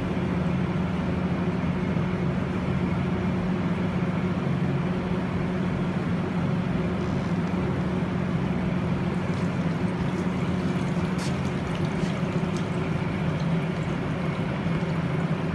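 Steady low machine hum from shop equipment beside a hydro-dip tank, with faint water sloshing and dripping in the second half as a part is pushed through and lifted out of the water.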